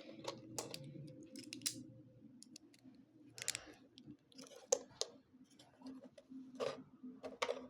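Plastic Lego pieces clicking and clattering as they are handled and pressed together: many short, irregular clicks, with a brief rustle about three and a half seconds in.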